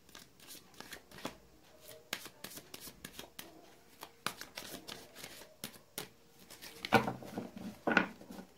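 A deck of tarot cards being shuffled by hand: a run of soft, irregular card clicks and slides, with two louder rustling strokes near the end.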